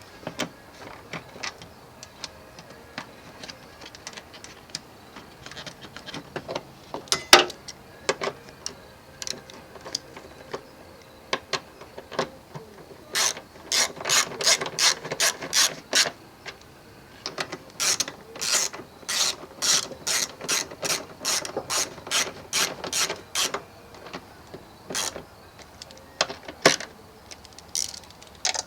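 Hand ratchet wrench clicking in runs of quick, evenly spaced clicks, several a second, with pauses and a few single clicks between runs.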